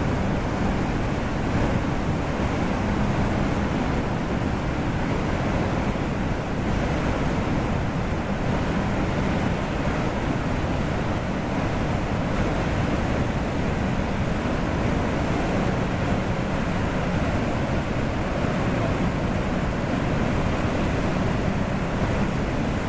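White water of the Nile rushing through Murchison Falls and its rapids: a steady, unbroken rush of water.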